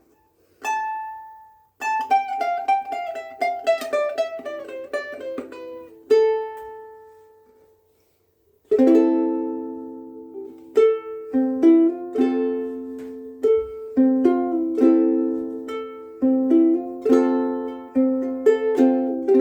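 Koaloha KSM-01 pineapple soprano ukulele with UkeSA strings played solo: a single plucked note, a quick descending run of notes, then one note left to ring out. After a short pause about eight seconds in, it moves into rhythmic picked chords.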